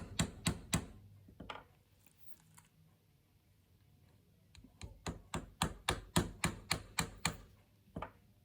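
Wooden dowels being hammered into a breadboard-end joint of fumed oak and ash: quick, even hammer blows at about four a second in two runs, with a pause of about three seconds between them and a single blow near the end.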